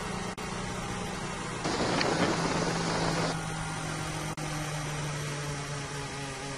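Mercedes Formula 1 car's 1.6-litre turbocharged V6 hybrid engine running at low revs on the slow lap after the race, heard through the team radio. A burst of hiss comes in about two seconds in, and the engine note shifts as it passes. The radio line drops out briefly twice.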